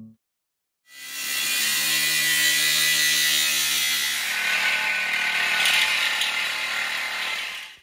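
Cordless power tool cutting through the steel shell of a pressure tank, throwing sparks. It runs as a steady, high-pitched grinding that starts about a second in and cuts off abruptly at the end.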